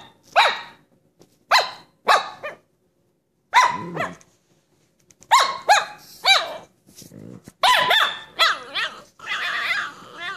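A puppy barking at another dog in play, short high-pitched yaps in clusters of two or three with pauses between, and a low growl now and then. Near the end the barking runs into one drawn-out, wavering whine-like call.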